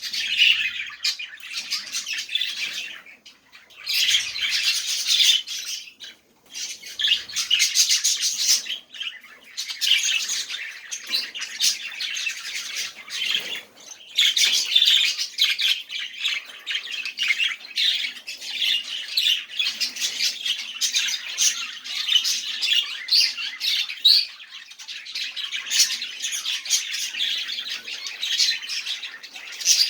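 Budgerigars warbling and chattering with squawks, a dense, fast run of high chirps that goes on in bouts with brief breaks about three and six seconds in.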